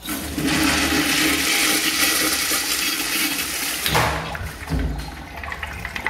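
Wall-mounted urinal flushing: a rush of water that starts abruptly and runs loud for about four seconds, then drops off with a low thump, the water running on more quietly after.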